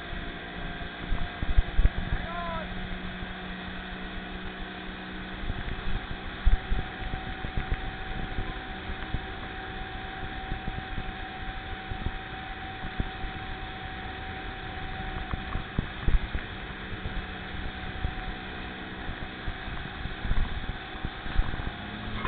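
Towing motorboat's engine running steadily at speed, with water and wind noise over the boat and irregular low thumps throughout.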